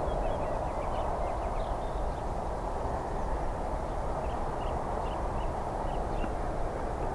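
Boeing 777 jet engines at takeoff power, a steady roar as the airliner climbs away, with small birds chirping faintly over it.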